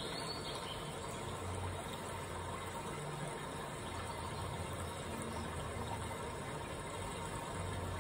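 Steady background hiss with a faint low hum that swells and fades a few times: room noise with no distinct event.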